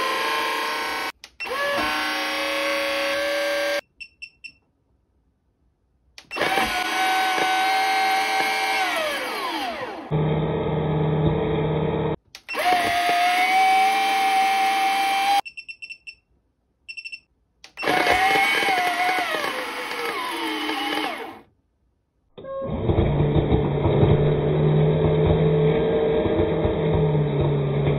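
Animated Halloween tombstone toy's sound chip playing its spooky sound effects through its small speaker while overdriven from a bench power supply at 30 to 61 volts. The sound comes in about five bursts with short silences between, and twice the pitch sags downward as a burst ends. Two of the later bursts are duller and carry a steady low hum.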